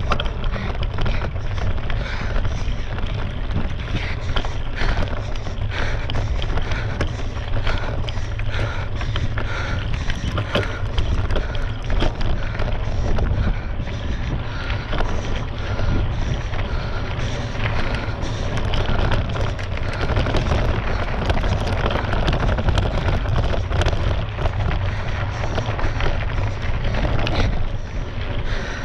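Wind rumbling on a GoPro action camera's microphone during a mountain-bike ride over rough desert dirt, with frequent small clicks and rattles from the bike and tyres.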